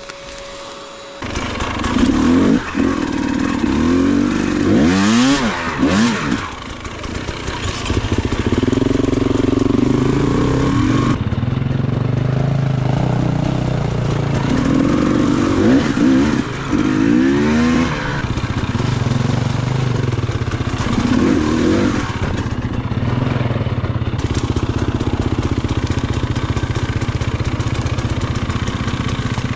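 Enduro motorcycle engine running hard, its revs rising and falling repeatedly as it is ridden over rough trail. It comes in sharply about a second in.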